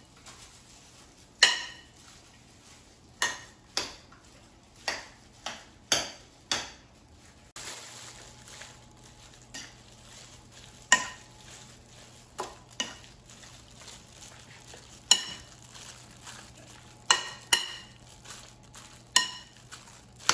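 Ground turkey being mixed with a fork in a glass mixing bowl: soft stirring broken by about fifteen sharp, ringing clinks of the fork against the glass at irregular intervals.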